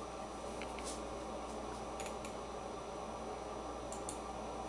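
Steady low room hum with a few faint, short clicks scattered through it, about six in all.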